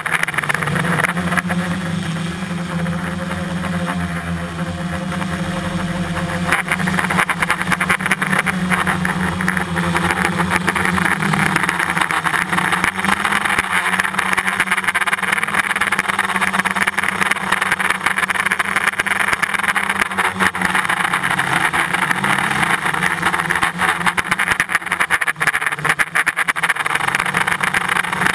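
Drone's electric motors and propellers whirring steadily, recorded by the camera it carries, with a low hum whose pitch wavers slightly as the craft manoeuvres over a hiss of rushing air.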